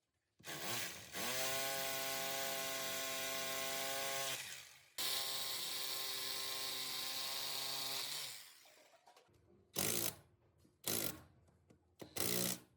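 Electric motor of a Bosch rotary hammer drill running. It spins up to a steady whine, holds for about four seconds and winds down, then is switched on again for about three seconds and coasts down. Three short blips of the trigger follow near the end.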